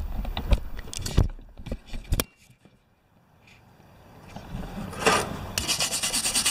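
Handling knocks and thumps in the first two seconds, then a brief hush, then a scraping, rubbing noise with a fast ticking from about five seconds in.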